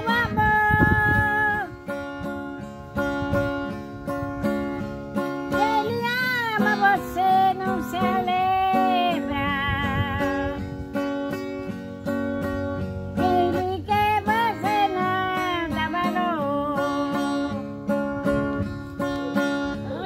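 An acoustic guitar is strummed as accompaniment while a woman sings a song. Her held notes carry vibrato.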